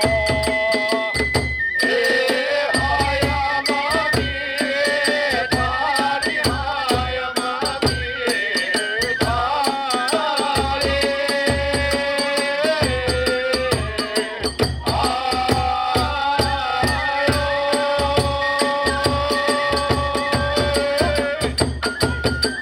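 Kagura hayashi ensemble playing: a bamboo transverse flute carries a sustained, bending melody over steady taiko drum beats and the rapid, continuous clashing of small hand cymbals.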